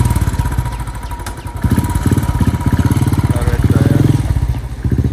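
Motorcycle engine running in neutral and revved up twice, its rapid firing pulses swelling and falling back.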